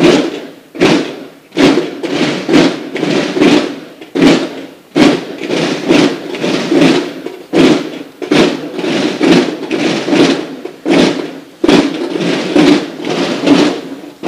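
Drums of a drum-and-bugle military band beating a steady marching cadence for the flag escort: a strong beat a little more than once a second with lighter strokes in between.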